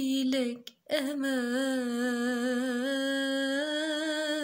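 A woman singing unaccompanied in Arabic classical tarab style, with a short sung word followed about a second in by one long held note that wavers with a gentle vibrato and rises slightly near the end.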